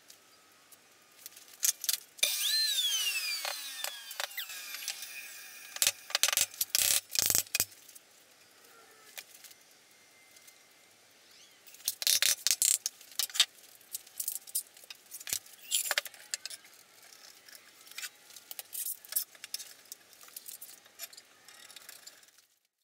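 Woodshop work on plywood. About two seconds in, a power tool's motor runs and winds down with a falling whine. After that come repeated sharp knocks and clatters as the plywood panels and clamps are handled and fitted together.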